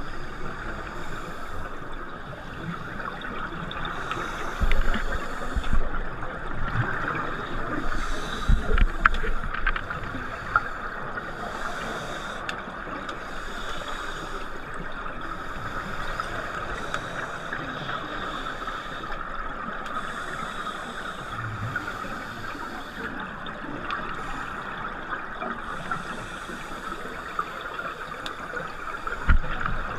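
Muffled underwater sound heard through an action camera's waterproof housing: scuba regulators' exhaled air bubbling over a steady hiss, with a few low thumps.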